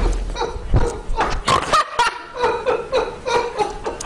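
A man laughing heartily in a run of short, repeated bursts.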